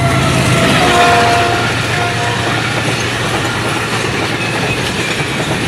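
GEU40 diesel-electric locomotive and its passenger coaches passing at high speed. The engine's low drone fades as the locomotive goes by, leaving the steady rush of the coaches rolling over the rails. The horn sounds about a second in, once for nearly a second, then a short toot.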